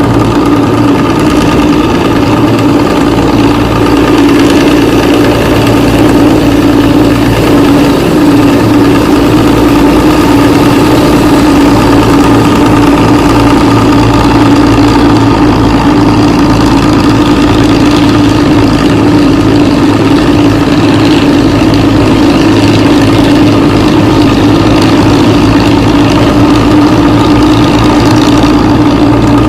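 Intercity bus's diesel engine idling steadily through a modified 'ngorok' exhaust that makes a low, snoring sound.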